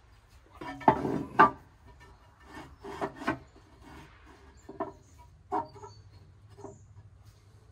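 Ceramic firebox of a Big Green Egg kamado grill knocking and scraping against the ceramic base as it is set back in place: two loud clunks about a second in, then several lighter knocks and scrapes.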